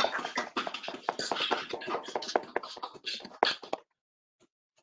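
Participants in a video call clapping, a dense patter of sharp claps through the call's audio that cuts off suddenly near the end.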